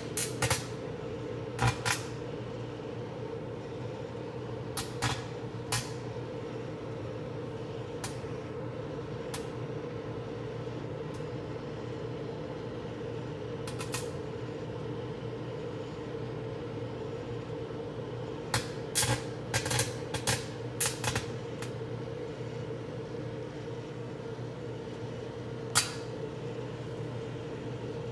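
Microwave oven running with its steady hum, broken by sharp snaps and crackles from arcing inside, now single, now several in quick succession.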